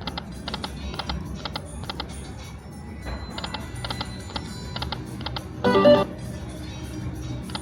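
Dragon Link Autumn Moon slot machine spinning its reels: a run of quick clicks as the reels turn and stop, with a short burst of electronic tones about six seconds in, over a steady low hum.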